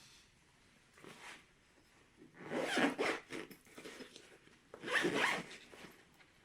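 Zipper on the drill kit's soft carrying bag being pulled in several strokes: a short one about a second in, then two longer ones around three and five seconds.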